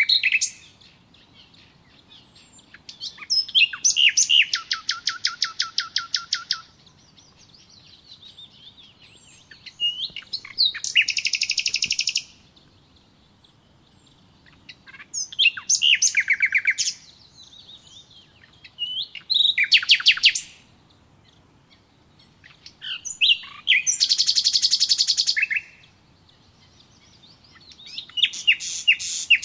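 Songbird song: fast, high trills of rapidly repeated notes, in phrases of one to three seconds that come about every four to five seconds, with quiet gaps between.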